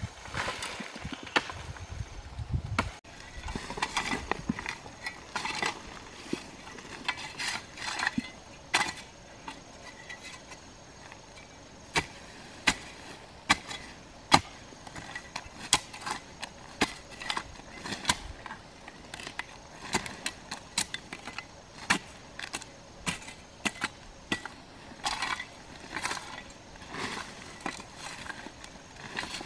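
A long-handled hoe chopping and scraping into soil in irregular strokes, about one a second, with one strike about halfway through louder than the rest.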